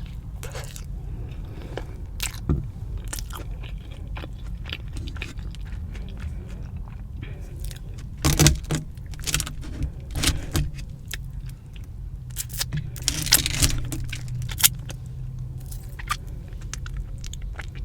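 Close-miked chewing and biting into crunchy fried Korean cheese dogs, with crisp crackling crunches throughout. The loudest bites come about eight and ten seconds in, and a denser run of crunching follows around thirteen seconds.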